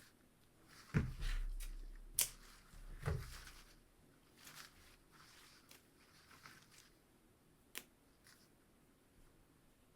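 Rustling and crackling of dried flower stems, baby's breath, being pushed into a string-and-stick weaving, with two soft thumps about one and three seconds in and a couple of sharp clicks.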